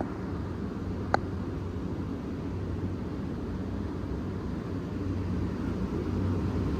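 Outdoor air-conditioning unit running: a steady low hum of compressor and fan, with one sharp click about a second in. The hum grows slightly louder toward the end.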